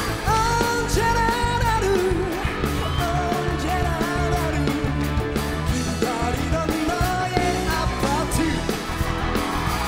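Live pop-rock band music with a lead singer's voice over a steady bass and drum backing.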